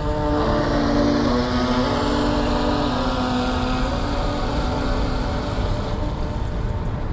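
Electric motor of a Heng Long Atlantic RC model yacht whining at speed as the boat runs across the water. Its pitch shifts in the first few seconds, then fades as the boat draws away, over a steady rushing noise.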